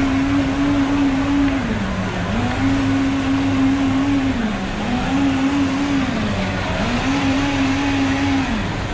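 Countertop blender motor running hard, its pitch sagging and climbing back four times, about every two seconds, as it churns a drink.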